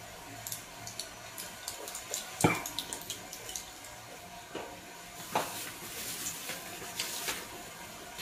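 Close-miked eating sounds: wet crunching, clicking and smacking as a slice of cucumber is chewed. A louder wet mouth sound comes about two and a half seconds in.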